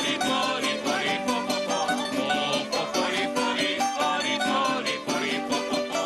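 Traditional eastern Venezuelan folk music from a plucked-string ensemble: mandolins and a guitar-type instrument playing a brisk, steady rhythm.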